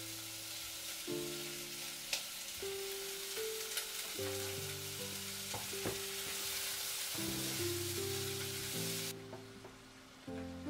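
Food sizzling as it fries in a pan, with a few sharp taps of a utensil against the pan. The sizzle cuts off abruptly about nine seconds in.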